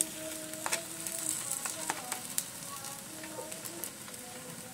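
Wingko cakes sizzling in margarine on a hot hinged double grill pan, with a few sharp clicks and taps as a plastic spatula nudges them around the pan.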